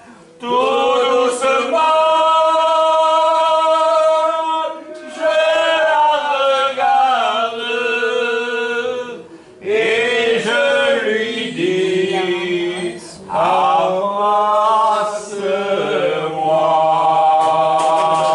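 Unaccompanied singing by a woman's voice, long drawn-out notes in phrases with brief breaths between them.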